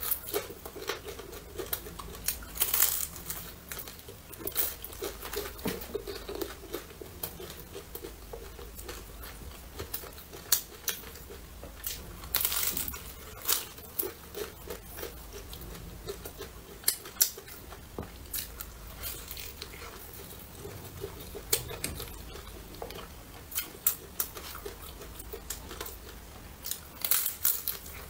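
Close-up eating sounds: crunching bites into a crispy fried vegetable pancake and chewing it, irregular crackly crunches with quieter chewing between.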